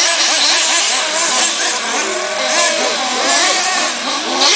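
Several 1/8-scale nitro RC truggies' small glow engines whining as they rev up and ease off, many overlapping pitches rising and falling.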